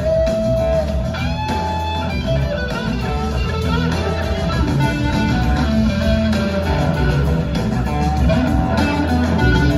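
Live blues-rock band playing, with an electric guitar lead over bass and drums; the guitar holds a long note, then slides up into a new phrase about a second in.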